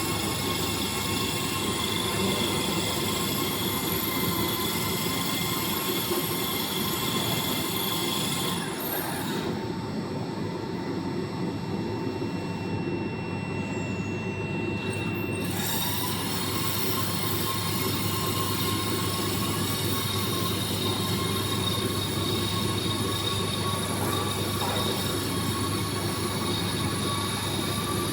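VMC1270 CNC vertical machining center running, with a steady mechanical hum under several high whining tones. The highest whines drop away for about six seconds partway through. After that, one whine comes back and slowly rises in pitch.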